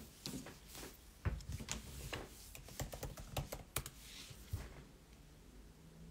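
Typing on a keyboard: an irregular run of key clicks and taps that stops short of five seconds in.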